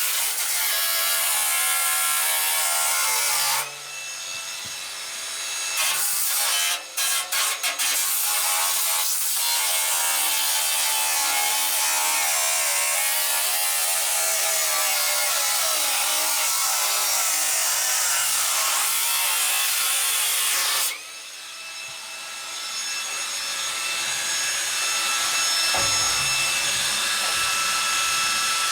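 Power tool cutting through the stainless steel inner drum of a washing machine. It runs with a shifting whine and briefly stops and restarts twice.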